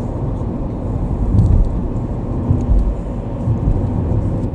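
Car driving, heard from inside the cabin: a steady low rumble of road and engine noise, swelling briefly a few times.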